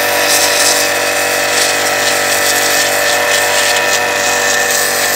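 BTALI BT 1100 electric pressure washer running steadily under load, its motor and pump giving a steady whine. Over the whine is the hiss of the narrow red-nozzle jet striking concrete and blasting off loose cement.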